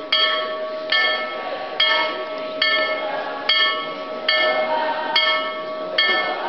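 A bell rung steadily at about one stroke a second, each stroke ringing on into the next. This is the ceremonial ringing-out bell of a Hungarian school farewell.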